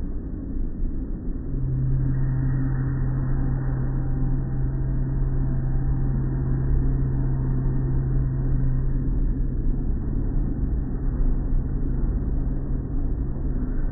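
Automatic car wash running, its soft-cloth strips and brushes scrubbing and slapping over the car, heard from inside the car as a steady rumble. A steady low machine hum sets in about a second and a half in.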